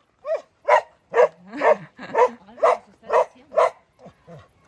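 Medium-sized dog barking in a steady series of about nine short barks, roughly two a second, which the people with it take as a friendly greeting.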